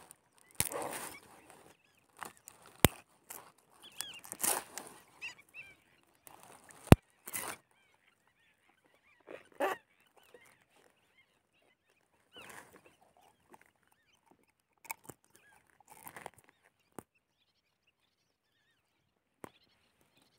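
Nylon gill net being pulled and picked apart by hand to free a fish: scattered short rustling and scraping bursts with a few sharp clicks, separated by quiet gaps.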